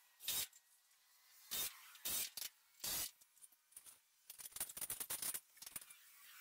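Short bursts of noise from hardware work up on a roof truss: four spread out, then a quick flurry of shorter ones about four seconds in.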